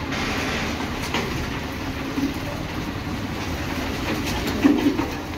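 A load of soil and stones sliding down a tipping tractor trolley's raised steel bed and spilling onto a heap: a steady rushing rumble with stones clattering, over the tractor's engine running.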